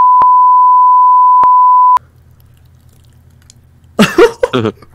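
A loud, steady one-pitch censor bleep, broken by a few clicks, covering a spoken answer and cutting off suddenly about two seconds in. A low hum follows, and then loud laughter breaks in near the end.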